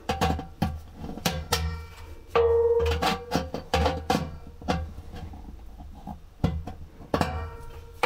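Background music with a steady percussive beat.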